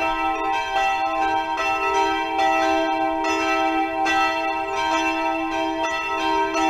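Church bells ringing: several bells struck over and over, their tones overlapping and ringing on between strikes.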